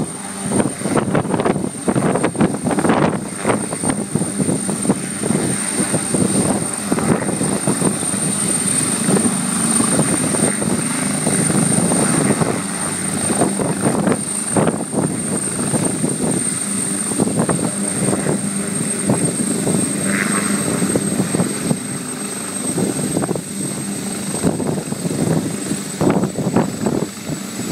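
Disaster-prevention helicopter hovering low and settling onto the ground, its turbine engines running at flight power. The main rotor chops, most sharply in the first few seconds, over a steady high turbine whine.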